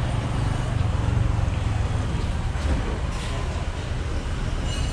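Steady low rumble of motor traffic and a motorbike engine on a street. A short high squeak comes just before the end.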